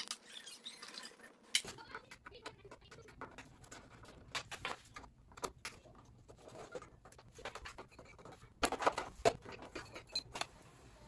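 Scattered light clicks, taps and scrapes of a hand tool and hands working on a motorcycle's fuel-injection area, with a run of louder clicks about nine seconds in.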